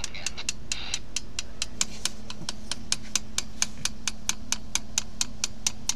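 A hammer tapping on the end of a screwdriver held against a fitting on an outboard motor's leg: rapid, even light strikes about five a second, over a steady low hum.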